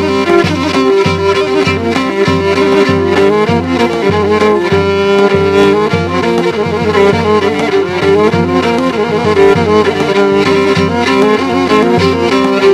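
Pontic lyra (kemenche) playing a dance melody against a held drone note, with a daouli drum keeping a steady beat underneath.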